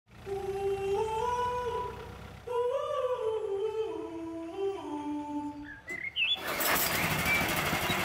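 A slow hummed tune, one voice moving in steps between held notes, with a short rising slide near six seconds. A loud, dense, rough noise takes over about six and a half seconds in.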